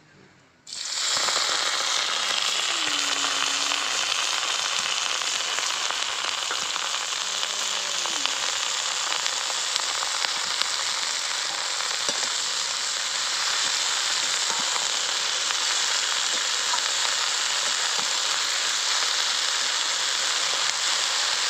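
Chopped bottle gourd (lau) leaves frying in hot oil in an aluminium kadai: a loud, steady sizzle that starts suddenly less than a second in, as the wet leaves hit the oil.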